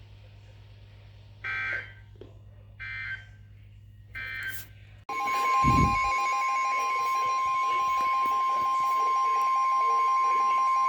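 Three short bursts of Emergency Alert System digital data tones, the end-of-message code that closes a weather alert. About five seconds in, a loud, steady alert attention tone cuts in with a brief low thump and holds, signalling the start of the next warning.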